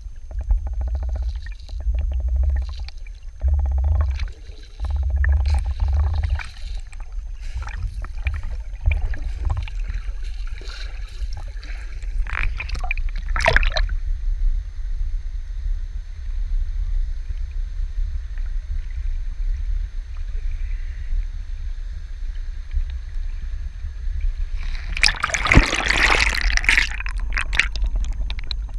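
Muffled underwater sound heard through a GoPro's waterproof housing: a low rumble with knocks and clicks as the camera moves through river water. About halfway there is a splash as it breaks the surface. Near the end comes a loud rush of water and bubbles as it plunges back under.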